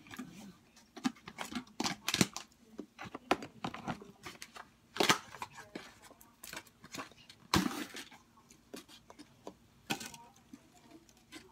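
Irregular crinkling and sharp crackles from potato chips and their packaging being handled, with louder snaps about five, seven and a half and ten seconds in.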